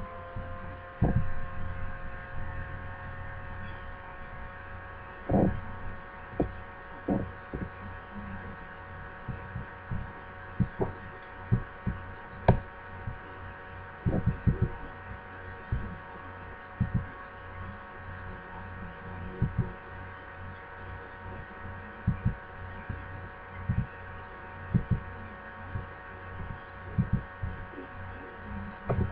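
A steady electrical hum made of several pitched tones, rising a little at first, with irregular dull thumps every second or two.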